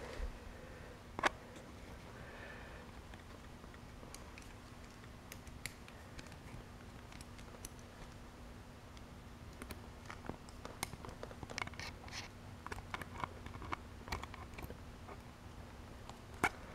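Scattered light clicks and taps of multimeter probes being handled and touched to an AC adapter's output plug, with two sharper clicks, one about a second in and one near the end, and a busier run of small taps in the second half. A faint steady low hum sits underneath.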